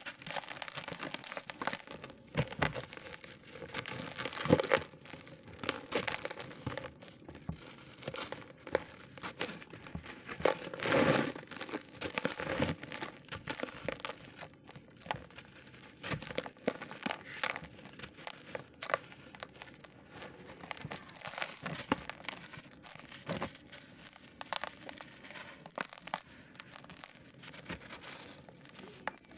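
Hands crumbling and squeezing a dry, dusty block of pressed powder, with crumbs falling into a plastic tub: irregular, crisp crunching and crackling that keeps going, with a few louder crunches.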